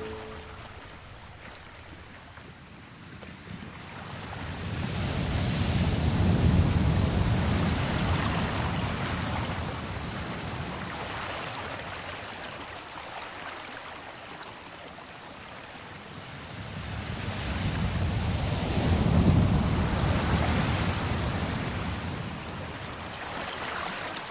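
Ocean surf: waves rushing in and drawing back, swelling to two big peaks about thirteen seconds apart.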